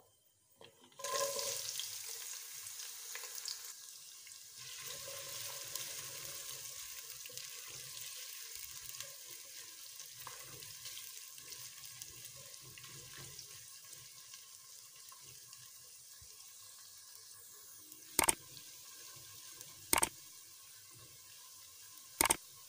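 Sliced onions dropped into hot oil in a non-stick pot, sizzling as they fry; the sizzle starts suddenly about a second in, loudest at first, and slowly dies down while they are stirred. Three sharp knocks near the end.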